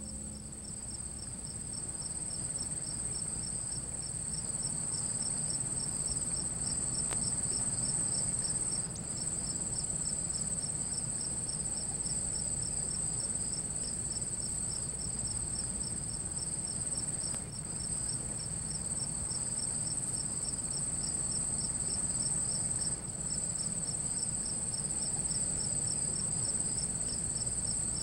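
Evening chorus of crickets: a steady high trill with a regular pulsed chirping just below it.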